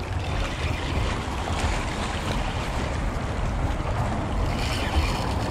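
Steady wind buffeting the microphone, with small waves washing against the rocks of a seawall.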